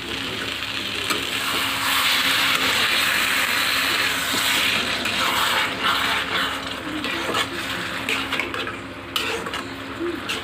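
Potato and brinjal pieces sizzling in hot oil and masala in a kadhai while a spatula stirs them. The sizzle is loudest in the first half and eases a little, with a few sharp clicks of the spatula against the pan near the end.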